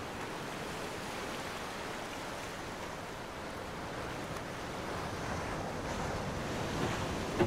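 Ocean surf washing steadily, growing a little louder in the last few seconds.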